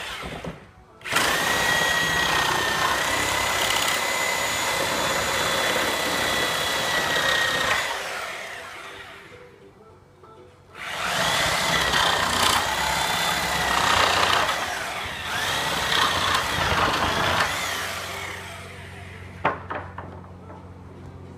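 Porter-Cable Tiger Saw reciprocating saw with a metal-cutting blade running in two long cuts of about seven seconds each, with a steady whine, sawing through the nails between pallet boards. A couple of sharp knocks near the end.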